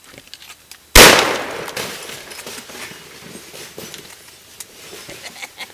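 A single 12-gauge gunshot about a second in, a sharp blast whose tail fades over about a second, followed by scattered small clicks and rattles.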